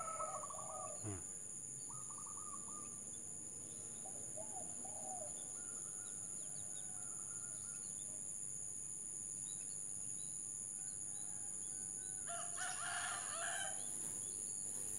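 Wild zebra doves (perkutut) cooing in short pulsed phrases, a few scattered calls and then a louder bout of calls near the end, over a steady high-pitched insect drone.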